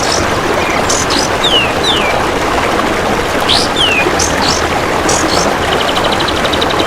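A kapas tembak bird gives short, sharp whistled notes that slide downward, several times. Near the end a golden grasshopper starts a rapid, even pulsing trill. All of it sits over a steady rushing of running water.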